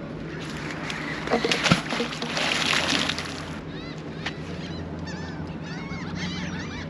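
A fishing magnet on a rope thrown into harbour water, landing with a splash about a second and a half in. From about halfway, birds call in a rapid series of short, repeated calls.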